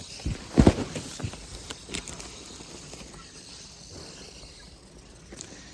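A few sharp knocks and rustles of goods being handled, the loudest knock just under a second in, then a faint steady hiss.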